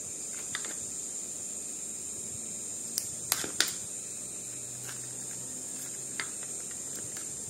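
A few light clicks and taps from gloved hands and a scalpel working the skin off a frog specimen, cutting and pulling, with the loudest cluster about three seconds in. A steady high hiss runs underneath.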